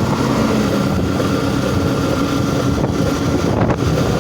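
Motorcycle engine running steadily at cruising speed, with wind rushing over the rider's microphone.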